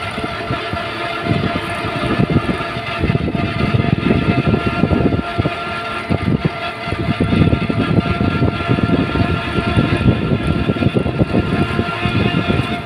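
Wind and road noise from riding in an open moving vehicle, a steady low rumble with a faint constant whine from its motor.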